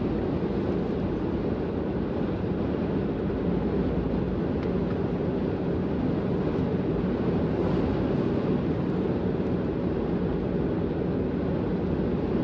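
Steady road and engine noise inside the cabin of a diesel Mitsubishi Pajero driving at highway speed.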